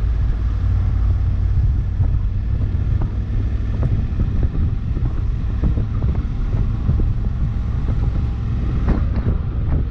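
Honda CRF1100L Africa Twin's parallel-twin engine running steadily while riding, with wind rushing over the microphone. A few brief light knocks are heard, loudest about nine seconds in.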